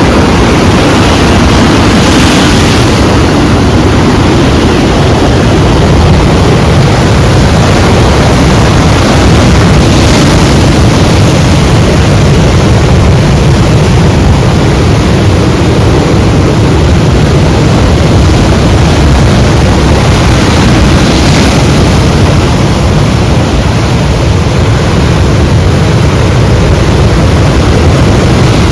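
Sea waves and surf: a loud, steady rumble of water with no pause, and brief brighter hissing washes of breaking water about 2, 10 and 21 seconds in.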